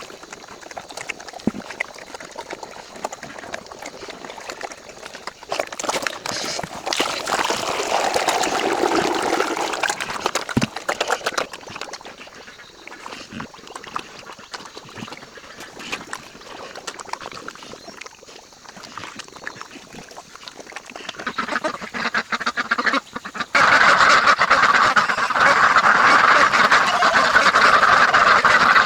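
A flock of ducks quacking, a dense overlapping chatter that becomes abruptly louder about two-thirds of the way through.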